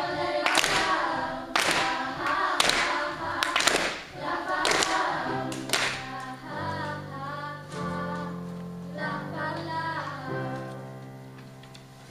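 School choir singing, with sharp claps on the beat about once a second through the first half. The song then settles into a few long held chords that fade away toward the end.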